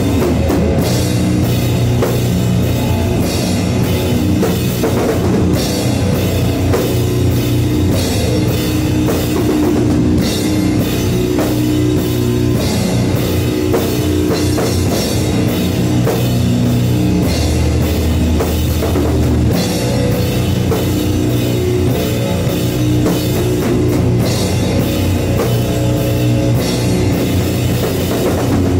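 Live heavy, slow rock band playing: distorted guitar and bass holding long low chords over a drum kit with cymbal crashes at a slow, steady beat of about one stroke a second. About two-thirds of the way in the riff drops to a lower note for a couple of seconds.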